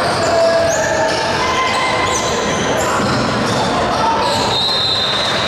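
Gym sounds during a youth basketball game: sneakers squeaking on the hardwood court over indistinct chatter from players and spectators in a large, echoing hall.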